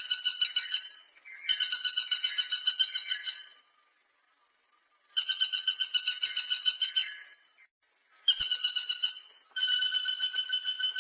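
Woodpecker calling: repeated bouts of a fast, rattling run of high notes, each lasting one to two seconds with short pauses between.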